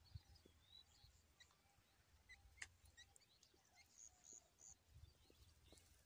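Near silence, with a few faint, high peeps from tiny quail chicks held in the hand, three in quick succession about four seconds in.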